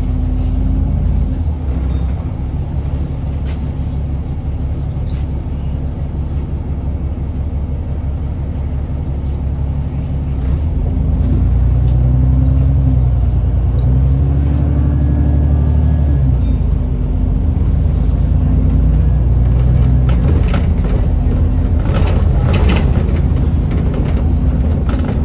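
Diesel engine of a London bus running steadily, then working harder from about ten seconds in, its note rising and shifting as the bus accelerates. A short burst of clatter and hiss follows near the end.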